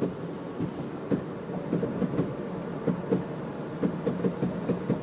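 2000 Jeep Grand Cherokee Laredo popping irregularly, a few sharp pops a second, while coasting off the throttle at about 45 mph, over steady road and engine noise.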